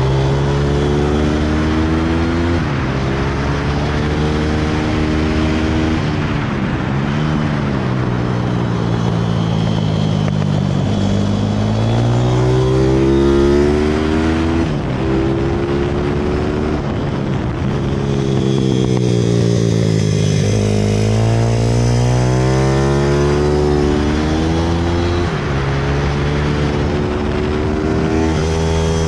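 Pit bike engine under hard riding, heard from onboard: the pitch climbs as it revs out and drops back at each gear change, several times, and falls away when the bike slows.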